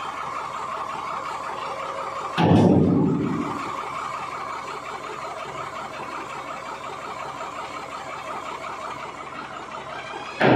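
Steady machinery hum with two sudden loud booming thuds about eight seconds apart, each dying away over about a second, as heavy steel is handled under an overhead crane.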